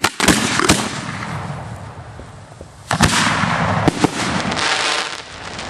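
Fireworks going off at close range: sharp bangs right at the start and again about three seconds in, with dense crackling in between.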